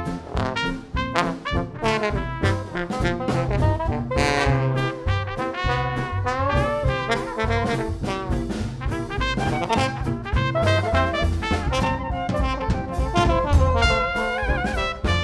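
A small New Orleans jazz band playing a second-line groove: trumpet, trombone and soprano saxophone playing together over upright bass, guitar and a steady drum beat.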